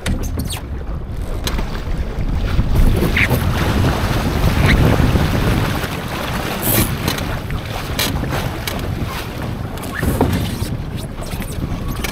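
Wind buffeting the microphone over water washing along the hull of an ILCA (Laser) sailing dinghy under sail, with scattered short knocks and splashes.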